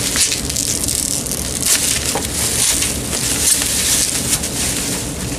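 Plastic bubble wrap crinkling and crackling irregularly as hands pull it off and unwrap a small cordless-phone charger base and adapter.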